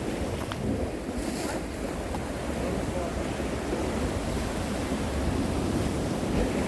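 Sea waves washing against a rocky shore, with wind buffeting the microphone in a steady low rumble.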